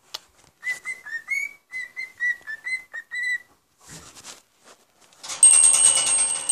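Cockatiel whistling its song: a run of about ten short whistled notes at a fairly even pitch, dipping and rising slightly, over about three seconds. About five seconds in, a loud metallic jingle with steady ringing tones starts.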